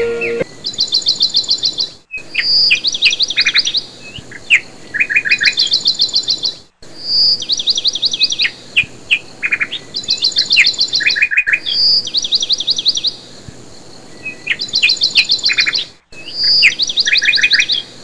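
A songbird singing the same phrase over and over, about every two seconds: a rapid trill of high, rising notes, then a few shorter, lower trills. The sound cuts out completely for a moment about every four to five seconds.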